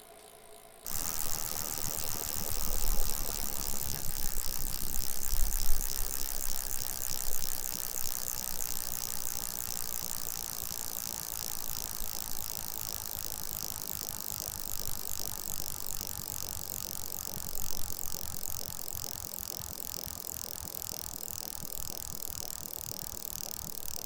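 Bicycle freewheel clicking rapidly as the rear wheel spins, with light chain and drivetrain rattle. It starts abruptly about a second in, with a few louder low rumbles in the first several seconds, then settles into a steady fast clicking.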